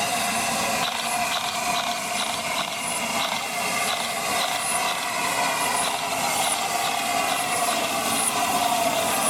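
Steam-hauled passenger coaches rolling slowly into the station, a steady hum with a regular light clicking.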